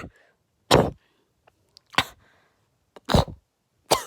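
A person coughing in four short, sharp coughs about a second apart, the coughing of a chronic coughing problem.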